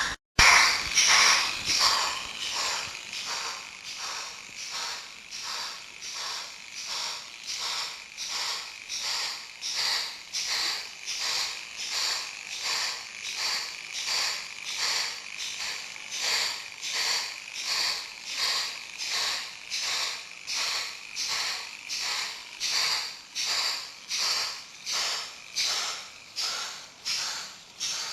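Steam locomotive chuffing played by a sound-module wagon behind a Märklin BR 03 model steam locomotive. The hissy chuffs come in a steady rhythm of about one and a half a second, loudest just at the start.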